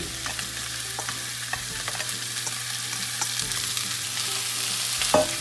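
Pork frying in oil in a pot, sizzling steadily with small crackles as sliced onion and radish cubes are tipped in and pushed about with chopsticks. A sharp knock about five seconds in.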